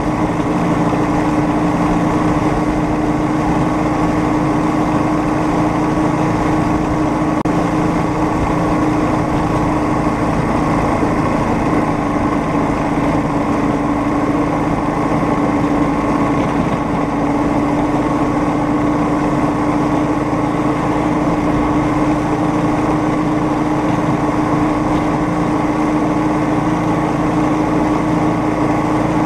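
Small engine of a homemade rail speeder running steadily as the cart travels along the track, an even drone that holds the same pace throughout.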